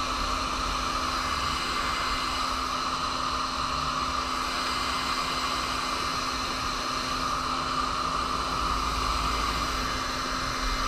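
Electric heat gun running steadily: a constant rush of blown air with a low motor hum.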